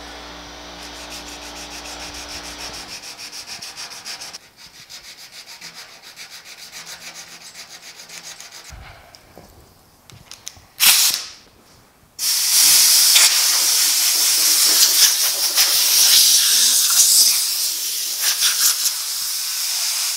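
Hand sanding a steel truck tailgate with 80-grit sandpaper on a small wooden block: quick rhythmic scraping strokes, about three to four a second. Then a compressed-air blow gun gives a short blast and, about twelve seconds in, a long loud steady hiss, blowing the sanding dust off the panel.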